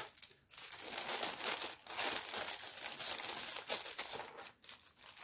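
Packaging of a paint-by-numbers kit rustling and crackling as it is handled, in fits and starts, with two brief pauses: one about half a second in and one shortly before the end.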